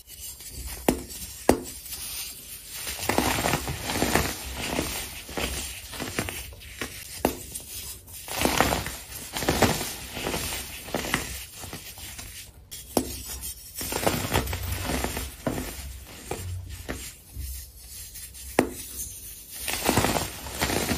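Clumps of packed, dyed baking soda being squeezed and crushed between the fingers, giving irregular crunching with a few sharp crackles as the powder breaks apart.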